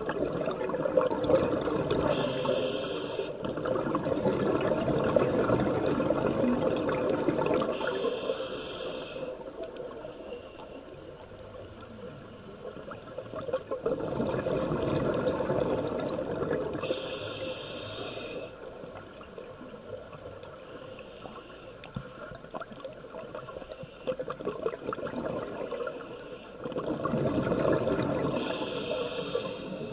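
Scuba diver breathing through a regulator underwater: four short inhalation hisses, several seconds apart, with long rushes of exhaled bubbles between them.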